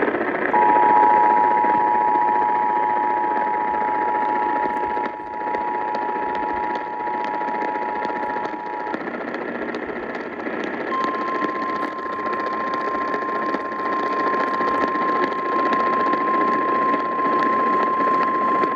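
Emergency Alert System two-tone attention signal (853 and 960 Hz together) held for about eight seconds, then after a short break the single 1050 Hz National Weather Service alert tone, which keeps going to the end. Both sound over a steady hiss with scattered crackles.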